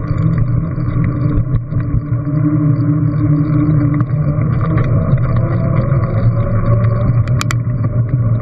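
Steady low rumble of wind buffeting a bike-mounted action camera's microphone while cycling at speed, mixed with tyre and road noise. A sharp click about seven seconds in.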